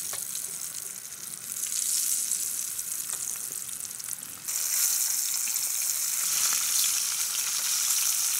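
A whole flour-dredged fish frying in oil in a pan, a steady sizzle with crackles that grows louder about halfway through. The cook says the pan is poor and the fish is catching and burning.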